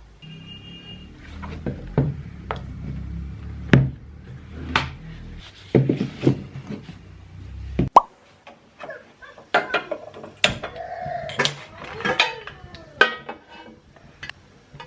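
Scattered knocks, taps and clatters of small objects being handled. A low hum runs underneath and cuts off suddenly about eight seconds in.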